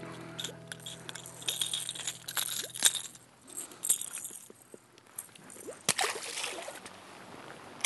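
Water splashing and sloshing with scattered light clicks and clinks, irregular and broken by short pauses, typical of a fish being handled at the side of a boat.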